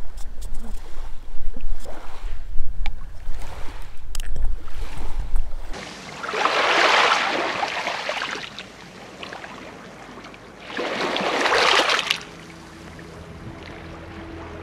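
Wind buffeting the microphone, with a few sharp clicks over it, stops abruptly; then two small waves wash up a pebble shore, each surge lasting one to two seconds. Soft music starts faintly near the end.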